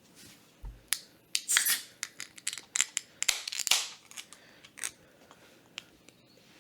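A beer can being handled and opened: a run of small clicks and scratches, with two short hissing bursts about one and a half and three and a half seconds in.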